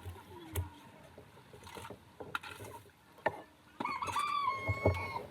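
A few scattered clicks and knocks, then, from a little before four seconds in, one long crow from a rooster: a held, slightly wavering call that drops off at the end.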